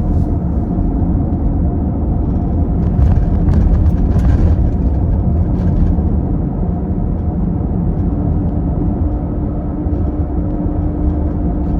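Car engine and road noise heard from inside the cabin while driving: a steady low rumble, a little louder a few seconds in.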